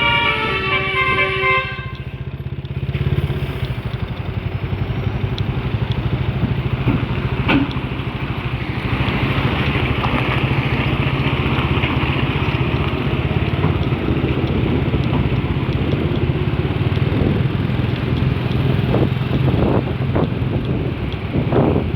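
A container truck's multi-tone 'telolet basuri' musical air horn plays the last notes of its melody, stopping about a second and a half in. After that, the truck's engine runs steadily.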